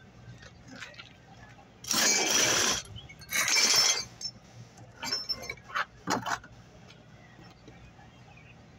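Metal parts of an exhaust fan clattering and rattling as they are handled: two loud bursts of rattling, each under a second, then a few lighter knocks and clinks.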